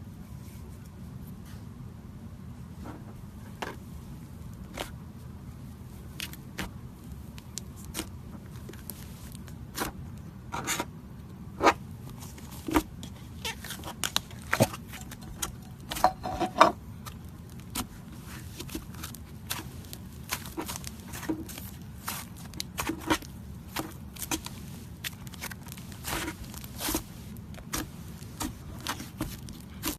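Slime mixed with clay being worked by hand, giving irregular sharp clicks and pops, some in quick clusters, over a steady low hum.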